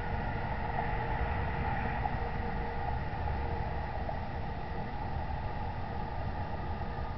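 Steady background hiss with a faint constant hum, picked up by an outdoor security camera's microphone; no distinct event.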